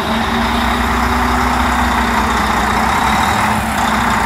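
Volvo VNL 780's diesel engine idling steadily, running again after its fuel system was primed by hand to get past a low fuel feed pressure no-start.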